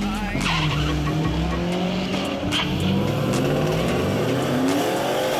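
Car engine revving, its pitch rising and falling.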